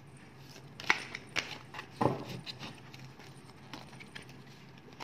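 Tarot cards being handled and laid down on a table: a scatter of sharp taps and slaps, the loudest about two seconds in with a dull thud.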